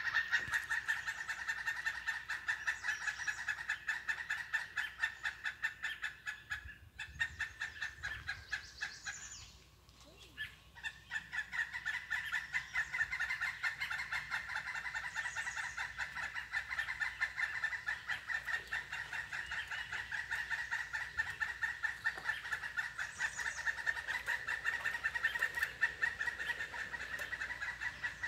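A continuous chorus of rapidly pulsed animal calls, steady in pitch, dropping away briefly about ten seconds in and then resuming.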